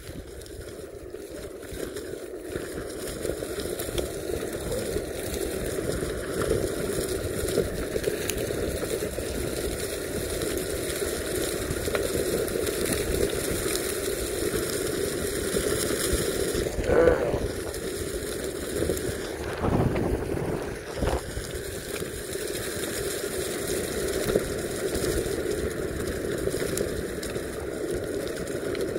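Meepo Mini 2 electric skateboard on Cloud Wheels rolling over dry fallen leaves and dirt, a steady rolling rush with wind on the microphone. A couple of brief louder bumps come a little past halfway.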